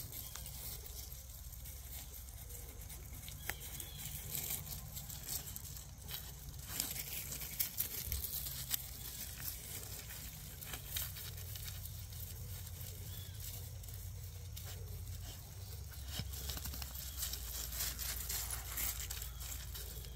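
Footsteps crunching and clicking on loose creek gravel, irregular and scattered, over a low steady rumble.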